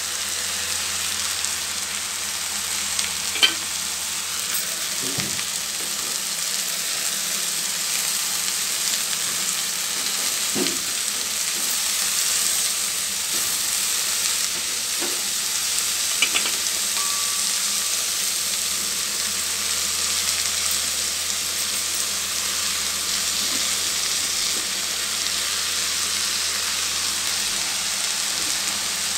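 Freshly washed ponnaganti (dwarf copperleaf) greens sizzling steadily in hot oil in a wok as they are stirred with a steel spatula, with a few sharp taps and scrapes of the spatula against the pan.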